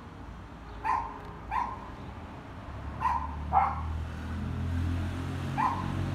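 A dog barking: five short single barks, spaced irregularly. From about three seconds in, the low rumble of a vehicle engine rises underneath.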